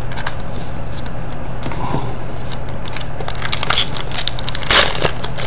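Foil wrapper of a Pinnacle hockey card pack crinkling and crackling as it is torn open, the crackles thickening in the last couple of seconds, over a steady low hum.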